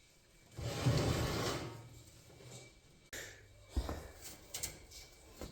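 Furnace cover being handled and fitted back on: a sliding scrape about half a second in, then a knock and a few sharp clicks.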